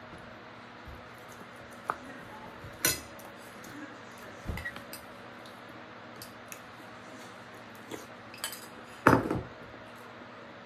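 A metal spoon and tableware clinking and knocking while someone eats: scattered short clinks, a dull knock near the middle, and the loudest clatter about nine seconds in.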